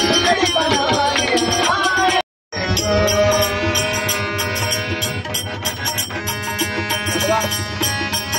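Live bhajan music on harmonium and tabla: a sung melody over held harmonium chords, then steady harmonium tones with tabla strokes. The sound cuts out completely for a moment about two seconds in.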